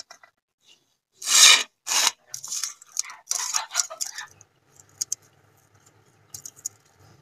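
Fingers mixing rice by hand on a stainless steel plate, rubbing and scraping against the metal in several rough bursts during the first half, followed by a few faint clicks.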